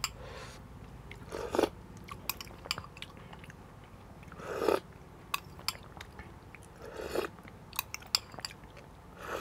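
Spoonfuls of clear soup slurped from a metal spoon, four short sips a few seconds apart, with light clinks of the spoon against a glass bowl between them.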